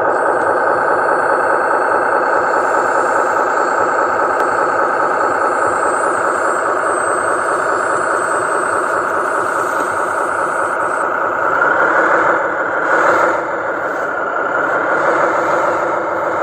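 Radio-controlled model dump truck's motor and drivetrain running steadily as it crawls over dirt and rocks, a dense mechanical whine and rattle that swells briefly about twelve seconds in.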